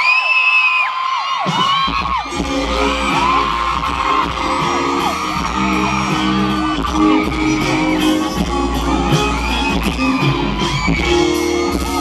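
Audience screaming and cheering, then a live band comes in with a pop song's instrumental intro about two seconds in, with high screams carrying on over the music.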